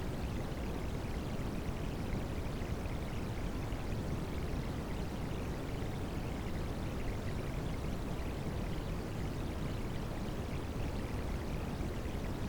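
Rain sound mixed with white noise: a steady, unbroken rush of water-like noise, heaviest in the low end, with no drops or changes standing out.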